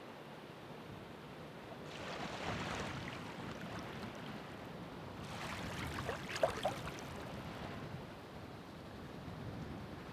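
Ocean waves washing onto the shore: a steady surf hiss with two waves surging in, one about two seconds in and a louder one about halfway through.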